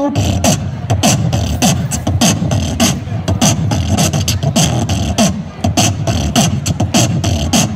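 Beatboxer performing through a handheld microphone and portable speaker amplifier: a fast, steady beat of vocal kick-drum thumps and sharp hi-hat clicks.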